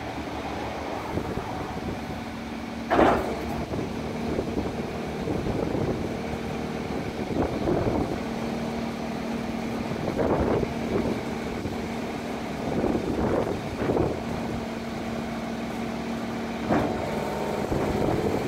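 Heil rear-end-loader refuse body running its hydraulic packing cycle on the idling Scania truck: a steady hum with metallic clanks and knocks as the sweep and slide plates move through the hopper, the loudest a sharp bang about three seconds in.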